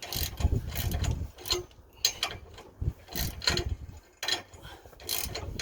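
Ratchet wrench clicking in short uneven spells, tightening a locking nut on a trailer stabilizer bracket.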